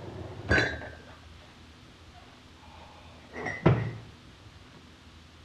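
A desk drawer pulled open about half a second in, the ceramic coffee mugs inside clinking; a second knock with a ringing clink follows about three and a half seconds in.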